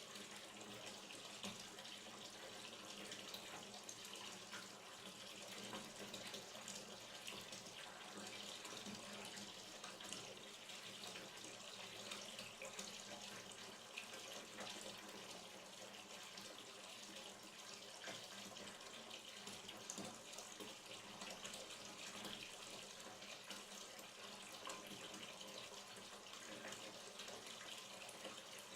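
Hot water running from a tap into a bathtub as it fills: a steady, fairly faint splashing stream with small irregular splashes.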